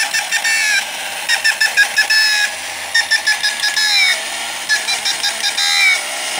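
Painted tin toy chicken moving by itself, its mechanism clattering in bursts of rapid clicks with squeaky, falling chirps, about one burst every second and a half. It is a noisy one.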